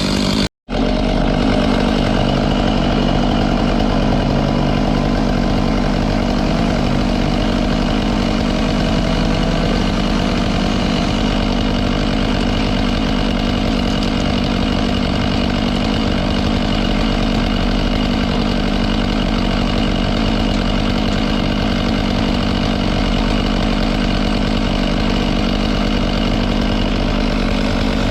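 A small engine running steadily at one constant speed, without revving, after the sound cuts out briefly about half a second in.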